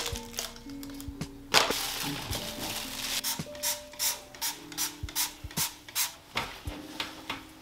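Hand trigger spray bottle of cleaner being squeezed over and over, short spritzes at about two or three a second, with a longer louder spray about one and a half seconds in.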